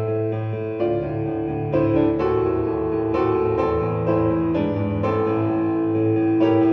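Background music: gentle piano-like keyboard playing slow notes and chords over a held bass.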